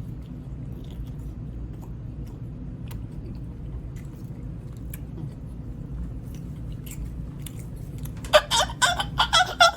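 Quiet chewing with faint mouth clicks over a low steady hum, then, about eight seconds in, a man's loud, high-pitched squealing vocal outbursts in short broken bursts.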